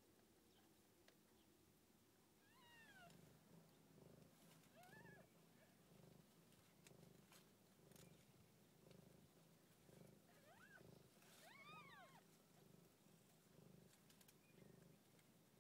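Faint, steady purring from a mother cat nursing her newborn kittens, pulsing about one and a half times a second. Over it come a few short, high, arching mews from the newborn kittens: two near the start and a pair near the end.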